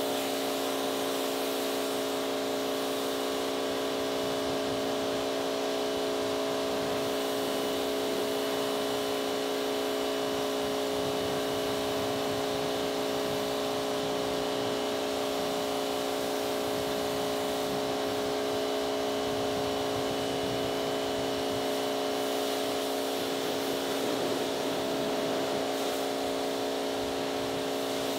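Pressure washer pump motor running steadily under load, with the hiss of the water jet spraying onto a car's paintwork.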